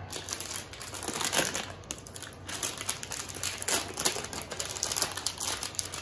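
Metallic anti-static hard-drive bag crinkling as it is torn open and handled, in an irregular run of rustles.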